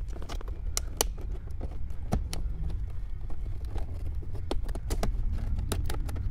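Plastic dashboard air vent on a Toyota Highlander being pried out with a trim panel tool: a scattering of sharp, irregular clicks and snaps from the plastic trim and its retaining clips, over a steady low hum.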